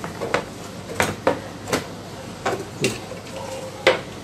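Irregular hard plastic knocks and clatter, about seven in all, as the loosened plastic back cover of an LED TV is handled and set against the set; the loudest knock comes near the end.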